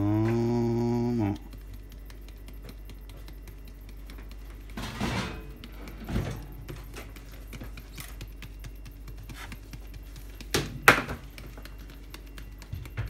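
A low voice holds a note for about a second. Then a plastic icing-sugar package is shaken and tapped over the cakes, with a brief rattle near the middle and a sharper knock near the end.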